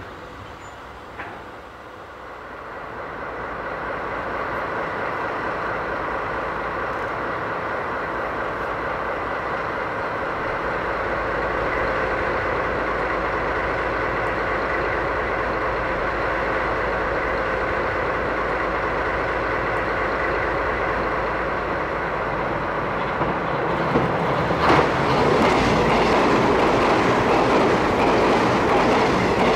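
DD51 diesel-hydraulic locomotive's twin V12 engines running, growing louder over the first few seconds as it draws near at low speed and then holding steady. About 24 seconds in this gives way to a louder train rushing past close by, with wheels clattering over rail joints.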